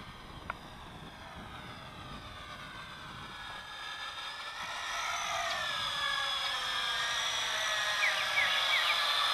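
JJRC H26 quadcopter's electric motors and propellers whining, growing steadily louder as it flies in close, the pitch bending downward about five seconds in as the throttle changes. A single sharp click about half a second in.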